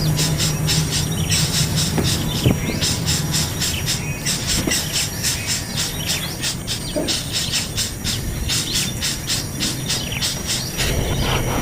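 Nestlings begging for food: a rapid run of short, high-pitched chirps repeated several times a second.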